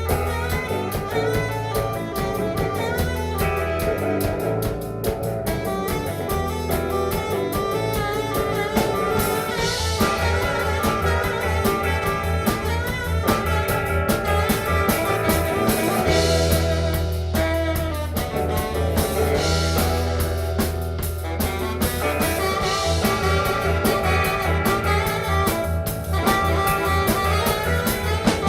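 Live band playing an instrumental passage of a rock song, with guitar, drums and a bass line of strong, repeated low notes.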